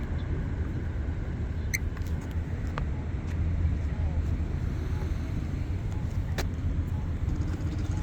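Steady road traffic: passing cars making a continuous low rumble, with a few faint scattered clicks.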